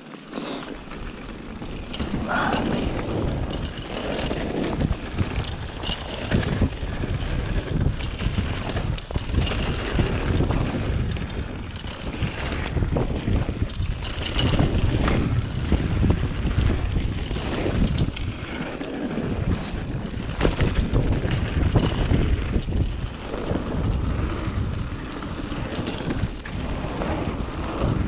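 Wind buffeting the microphone of a chest-mounted camera during a fast ride: loud, gusting rumble with irregular rattles and knocks throughout.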